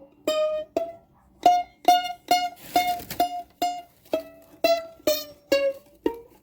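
Mandolin played one picked note at a time, a run of a dozen or so notes at about two a second, moving up and down in pitch. The strings sit so high above the fretboard that they hurt to press down, and the instrument is unplayable.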